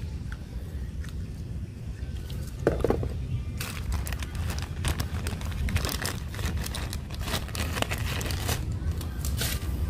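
Clear plastic bag crinkling as it is handled and opened, with the sound starting about three and a half seconds in and going on in dense crackles until near the end.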